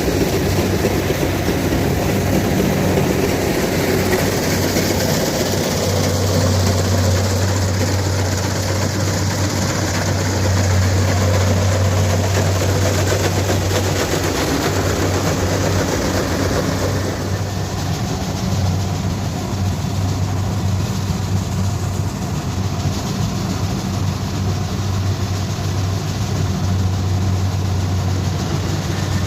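Kubota DC-70 Plus combine harvester running steadily, its engine giving a constant low hum under a broad mechanical rush. The higher noise eases off a little over halfway through while the engine hum carries on.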